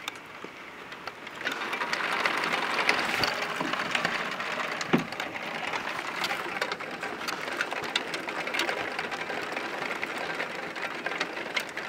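Heavy rain pouring down, a dense patter of drops hitting nearby surfaces, louder from about a second and a half in. A single knock about five seconds in.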